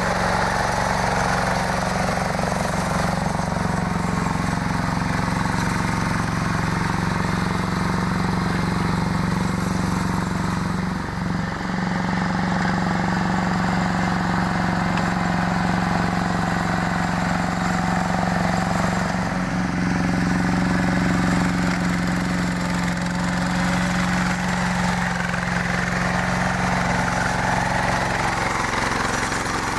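Yanmar walking tractor's single-cylinder diesel engine running steadily under load while working a grassy, muddy rice paddy with rotary cage wheels. Its pitch dips briefly twice.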